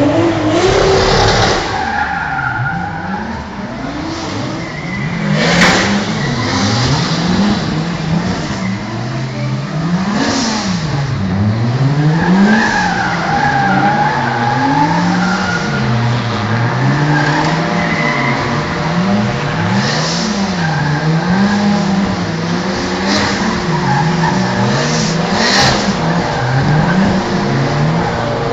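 Drift cars in a tandem slide, their engines revving up and down over and over as the tyres squeal. Two sharp cracks cut through, one about five seconds in and one near the end.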